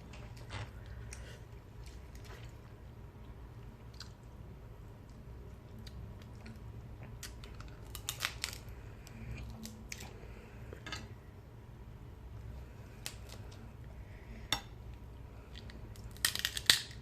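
Crab being eaten up close: chewing with scattered sharp cracks and crunches, the loudest cluster of crunches near the end. A steady low hum runs underneath.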